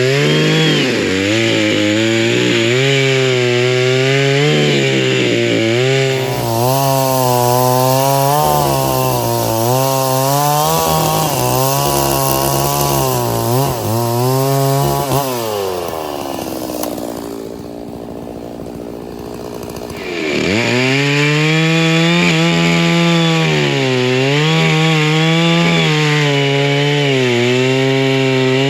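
Stihl two-stroke chainsaw bucking firewood, its engine note wavering up and down as the chain bogs and recovers in the cut. About fifteen seconds in the revs fall away and the saw runs quieter for a few seconds, then it revs back up and cuts again.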